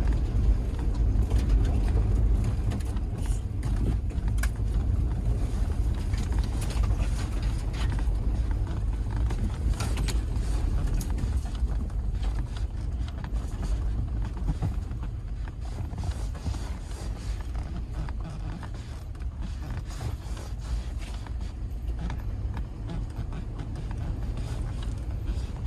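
Steady low rumble of a moving vehicle with creaks and rattles throughout, as heard from inside it.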